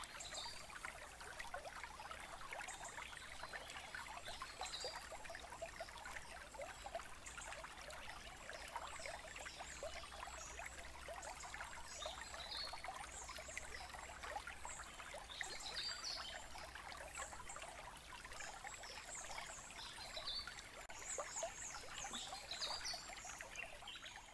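Faint steady outdoor ambience: a continuous rushing hiss like trickling water, with scattered short high chirps of birds.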